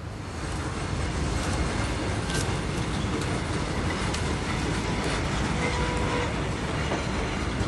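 Railway carriages rolling past close by: a steady wheel-on-rail rumble with a few sharp clicks from the wheels over rail joints.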